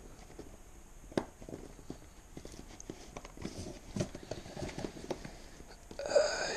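Cardboard packaging being handled: a white inner box being worked and slid out of its brown cardboard carton, with soft rubbing and scraping, two sharp knocks, and a louder sound near the end.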